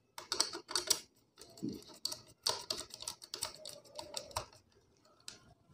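Irregular clicks, taps and scraping of a bare copper wire end being handled and fitted into a switch's screw terminal on a plastic switch board.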